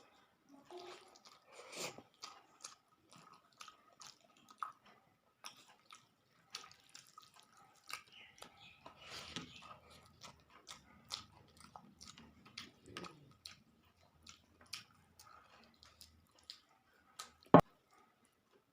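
A person eating close to the microphone: wet chewing and lip-smacking with many small irregular clicks, and one sharp loud click near the end.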